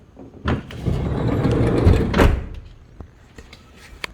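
Toyota Alphard's power rear sliding door running on its motor for about a second and a half, then shutting with a thud, followed by a few light clicks. Its lock mechanism and contact points are freshly greased to cure a knocking and squeak.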